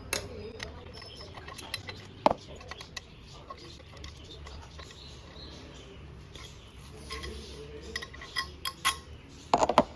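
Scattered light metallic clicks and clinks of hand tools and small metal parts being handled while working on a motorcycle's front sprocket cover, with a quick run of clicks near the end.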